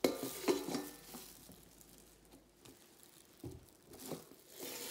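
Stainless steel bowls clinking and scraping as one is set upside down over the other as a lid, with a few short metallic rings in the first second. Lighter knocks and handling noise follow as the covered bowls are moved.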